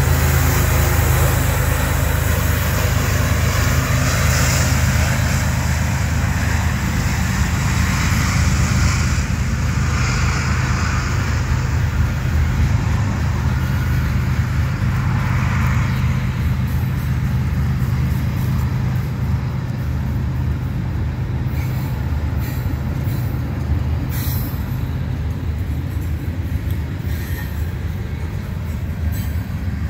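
GE ES44AC diesel locomotive running as a mid-train helper, passing close with a low engine drone that slowly fades. Freight cars roll past behind it with steady wheel-on-rail noise.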